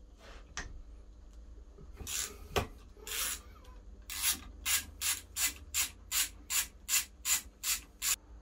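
Hand socket ratchet clicking as it works a bolt on a Mazda MX-5 Miata engine block: a few uneven rasping strokes, then about a dozen quick, even strokes in the second half, two or three a second.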